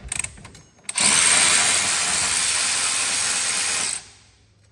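Electric ratchet on an extension running steadily for about three seconds as it spins out a 13 mm brake caliper mounting bolt. It starts about a second in after a few small handling clicks and stops sharply.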